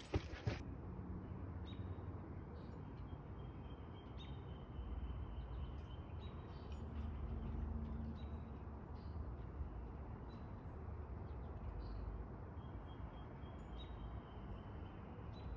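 Faint outdoor ambience: a low steady rumble with small birds chirping now and then.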